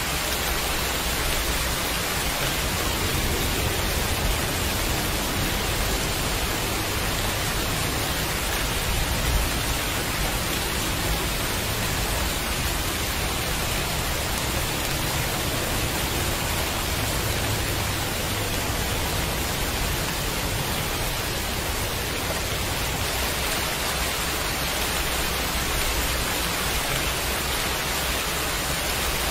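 Steady heavy rain, an even, unbroken hiss with a low rumble underneath.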